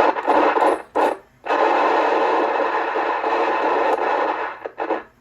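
CB radio speaker giving out loud static: a few short bursts of rushing noise, then a steady hiss for about three seconds, cutting off sharply near the end.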